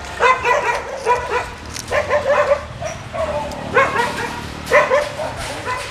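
Caged dogs barking in short bursts of several barks each, about five bursts in all.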